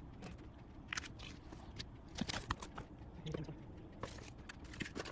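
Faint, scattered light clicks and taps of handling, a few each second and unevenly spaced.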